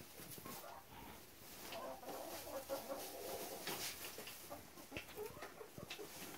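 Backyard hens clucking softly in the coop, a run of low clucks between about two and three seconds in, with scattered light ticks.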